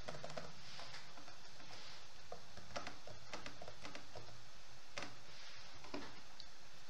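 Computer keyboard keys and mouse buttons clicking, scattered single clicks over a steady low room hiss.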